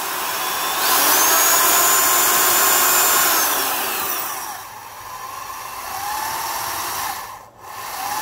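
Black & Decker 7150 3/8-inch corded electric drill running on its trigger. The motor winds up to full speed with a high whine, holds for a couple of seconds, then drops back to a lower speed, cuts out briefly near the end and starts again. The variable-speed trigger is worn and barely varies the speed, acting more like a two-speed switch.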